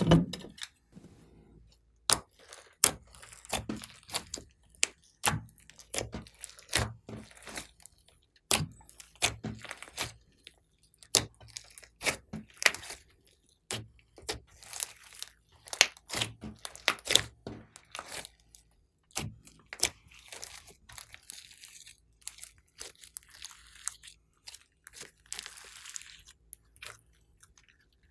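Hands squishing, folding and kneading soft fluffy slime: irregular wet pops and crackles, with longer stretches of crackling in the second half as the slime is pulled and torn.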